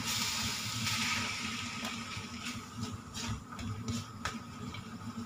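Pork, chilies, ginger and onion sizzling in a wok while being stirred with a spatula. The sizzle fades after about two seconds, leaving scattered clicks and scrapes of the spatula against the wok.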